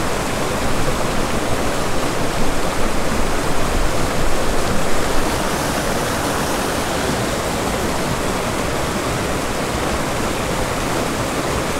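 A small creek's cascade pouring and splashing into a pool: a steady, full rush of water.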